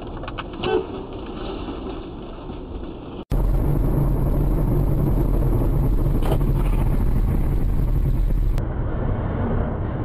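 Steady road and engine noise of a moving car, heard from inside the cabin, as a dashcam records it. The sound jumps abruptly twice where different recordings are spliced together, and the middle stretch carries a louder, low, steady hum. There is a short knock or rattle near the start.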